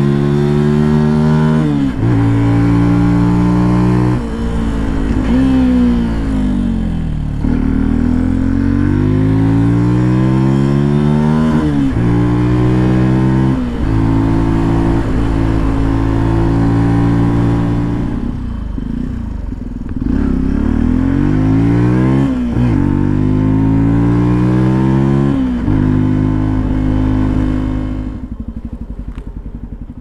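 2022 Benelli TNT 125's air-cooled 125cc single-cylinder engine through its stock Euro5 exhaust, pulling up through the gears: the note rises and drops sharply at each shift. It eases off and falls in pitch about two-thirds of the way through, pulls again, then fades out near the end.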